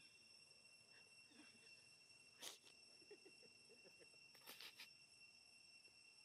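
Near silence with a faint, steady high-pitched insect drone. There is a soft click about two and a half seconds in and a few quick clicks a couple of seconds later.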